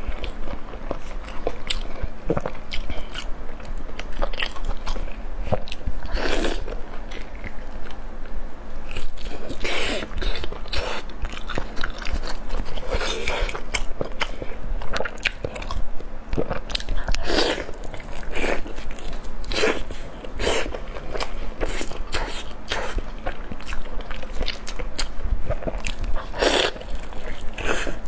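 Close-miked eating sounds: a person biting and chewing a soft, sauce-glazed food, with many short, irregular bites and wet mouth smacks.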